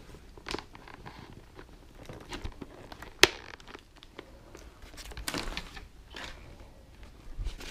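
Foam cheek pad and fabric liner of an HJC IS-MAX 2 helmet rustling and rubbing as they are pressed into place by hand, with one sharp click about three seconds in as a cheek-pad snap fastener snaps shut.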